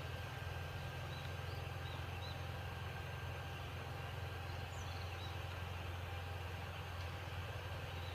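Outdoor ambience: a steady low rumble under a noise haze, with faint short high bird chirps scattered through it.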